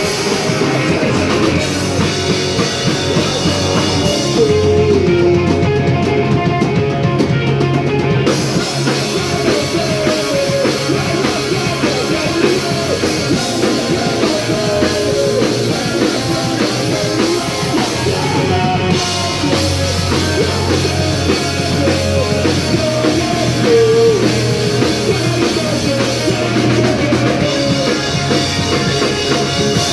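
Live punk rock band playing loud: two electric guitars, a bass guitar and a drum kit.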